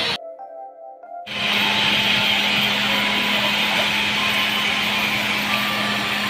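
Background music fading out, then about a second in a steady whirring noise with a low hum starts abruptly and runs on unchanged.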